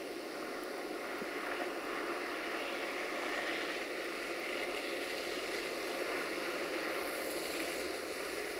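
A vehicle going past: a steady rushing noise with faint engine tones, a little louder in the middle.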